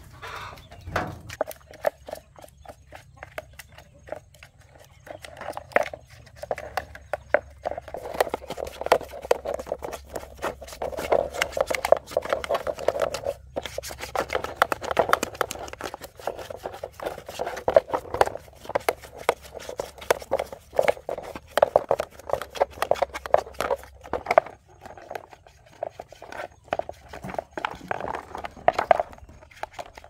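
A stiff brush scrubbing the ribbed plastic pulsator of a washing machine in quick, rapid strokes, after a few scattered knocks of plastic parts being handled.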